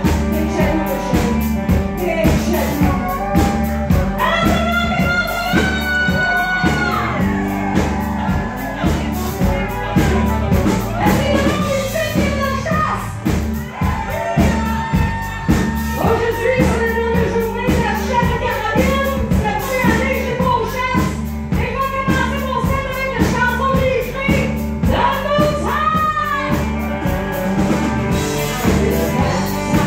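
Country song: a woman singing over a band with drums and a steady beat.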